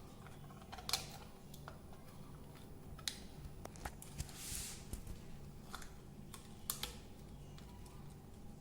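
Scattered clicks and taps, with a brief scrape about halfway, from a wall power socket and its fittings being handled, pushed into the switchboard box and screwed in place.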